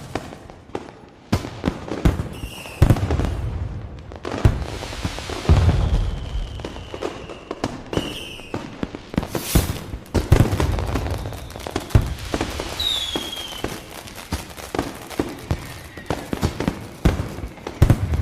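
Fireworks going off in quick succession: a dense run of sharp bangs and crackling, with several deep booms and a few short whistles falling slightly in pitch.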